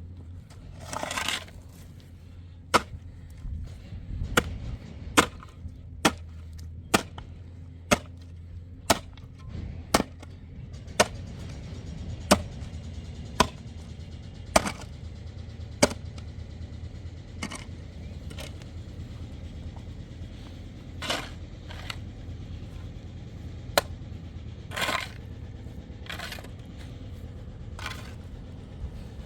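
Sharp knocks repeated about once a second for some fifteen seconds, then a few more spaced further apart, over a steady low hum, with a few short swishing sounds between them.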